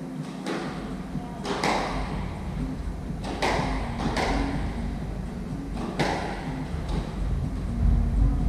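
Squash ball struck by racquets and smacking off the court walls during a rally. There are several sharp hits a second or two apart, each echoing around the enclosed court.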